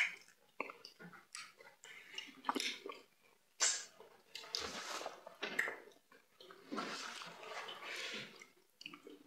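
Eating by hand: wet chewing, lip smacks and fingers squishing fufu in peanut-palmnut soup. The sounds come as irregular soft clicks, with a few longer wet, hissy stretches.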